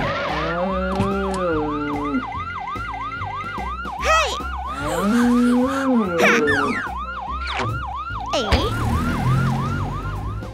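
Cartoon ambulance siren: a quick up-and-down whoop repeating about three times a second. Twice a longer, lower call rises, holds for about two seconds and falls away over it.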